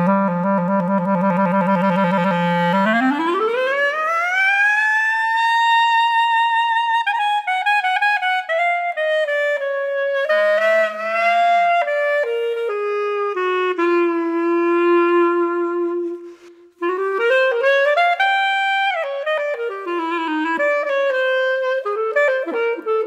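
A B-flat clarinet, played on a German-system clarinet with a Selmer Focus mouthpiece, in a jazz-style solo. It opens on a low held note, then makes a long smeared glissando upward over about three seconds. A run of changing notes follows, with a long held note in the middle register.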